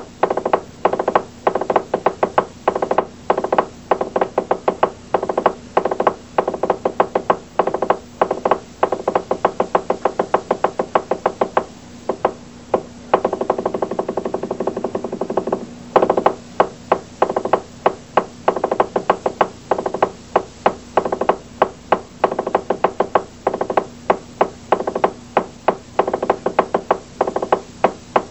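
Rhythmic percussion: sharp drum beats, about three a second, over a steady ringing tone. Around the middle the beats run together into a continuous roll for a few seconds, then the steady beating resumes.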